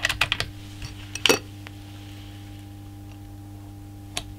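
Small metallic clicks and clinks from handling the Benjamin Fortitude air rifle's trigger during a trigger-pull weight measurement. A quick run of clicks at the start and a louder single click about a second in, with one small click near the end, over a faint steady hum.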